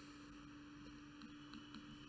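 Near silence: room tone with a steady low hum. From about a second in come faint, light ticks, about four a second, from a stylus writing on a tablet.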